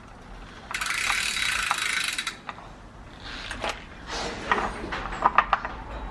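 Hands-on work on a road bike: a rasping, ratchet-like burst lasting about a second and a half, then a few scattered sharp clicks and taps.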